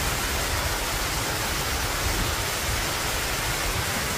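Small waterfall rushing steadily down a granite rock channel, white water splashing.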